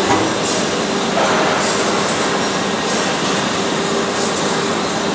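Vertical hydraulic baling press's power pack, an electric motor driving the hydraulic pump, running steadily. It makes an even hiss with a faint steady hum.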